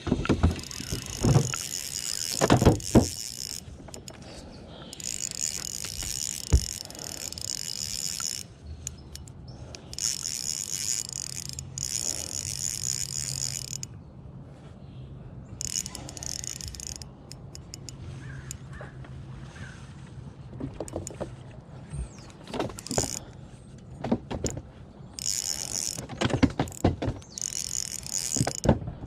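Fishing reel cranked in several spells of two to three seconds each, a high whirring, with scattered knocks and clatter on the boat and a steady low engine hum underneath.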